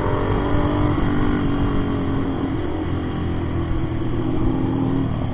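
Motorcycle engine running at a steady cruise, its pitch holding nearly level with a slight dip about halfway through, over a low wind rumble.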